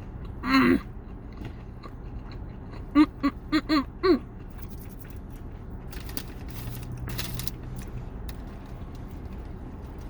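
A person's wordless hummed vocal sounds while eating: one short "mm" about half a second in, then five quick ones in a row a few seconds later, followed by a brief rustling.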